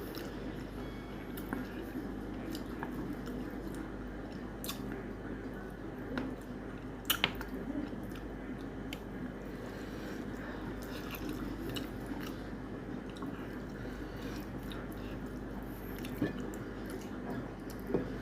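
A person chewing big mouthfuls of mutton curry and rice, with scattered wet mouth clicks and a sharp double click about seven seconds in, over a steady low hum.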